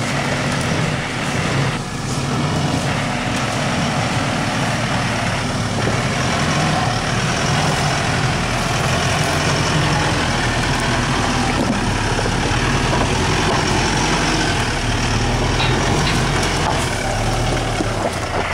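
Mitsubishi Challenger 4x4's engine running steadily at low revs as the vehicle crawls over rock.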